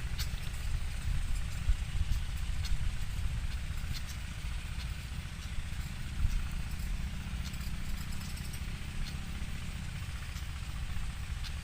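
A steady low rumble with many short, high chips scattered through it, from the pied fantails at the nest.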